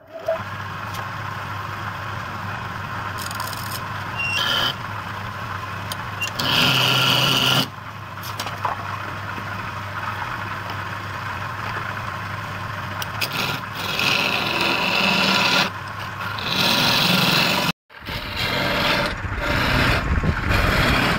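Wood lathe running with a steady low hum as a wooden bowl spins, with several louder stretches of scraping as a tool or abrasive works the turning wood. The sound cuts out for a moment near the end.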